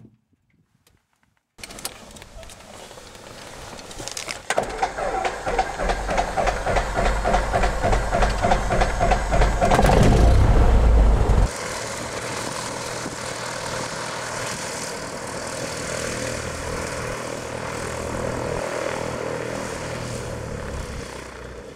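Single-engine Cessna's piston engine and propeller running, coming in about one and a half seconds in and growing louder with a heavy low rumble, heard from inside the cabin. About halfway through it cuts abruptly to a steadier engine-and-propeller drone heard from outside as the plane taxis.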